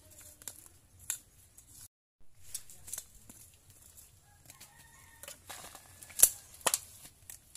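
Soil and roots crunching, scraping and tearing as a purple yam (ube) tuber is dug out of dry earth by hand and bolo, with scattered sharp snaps, the loudest about six seconds in. A chicken calls in the background midway through.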